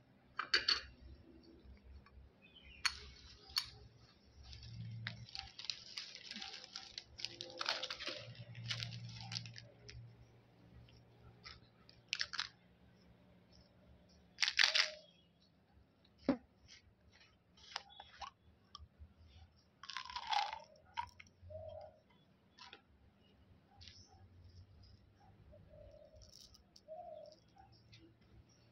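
Candy packaging being handled and opened: plastic wrappers crinkling in short spells, with scattered sharp clicks and taps.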